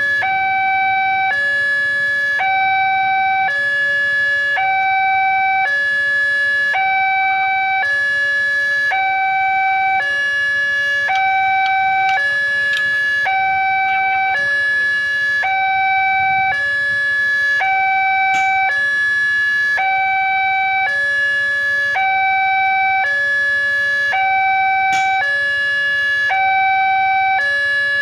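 Railway level crossing warning alarm from the loudspeaker on the crossing mast: an electronic two-tone chime alternating steadily between a higher and a lower tone, each lasting about three quarters of a second. It is the signal that a train is approaching and the crossing is closing.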